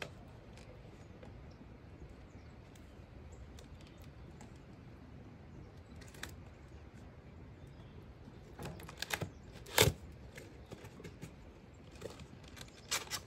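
Cardboard shipping box being handled and opened: scattered light clicks, taps and scrapes, with a quick cluster of knocks near the middle and the loudest sharp knock a little after it.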